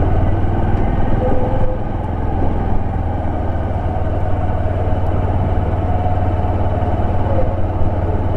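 Motorcycle engine running steadily as the bike is ridden, a constant low drone with no change in pace.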